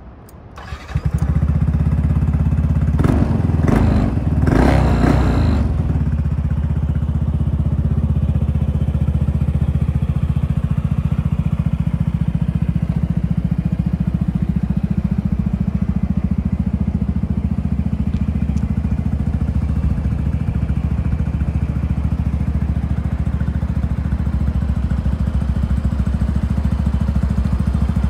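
Yamaha NMAX scooter's single-cylinder engine, breathing through an aftermarket muffler, starting about a second in. It is rougher for a few seconds just after starting, then settles into a steady idle.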